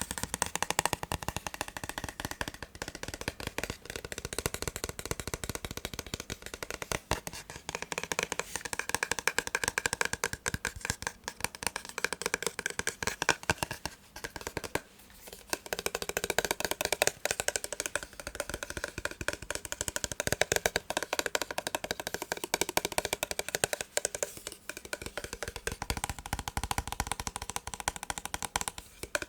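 Fast ASMR tapping on a massage gun: a dense, continuous run of quick taps, with a short pause about fifteen seconds in.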